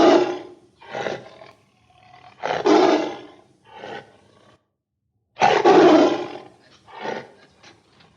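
A large wild animal roaring: three loud roars, each followed by a shorter, softer one.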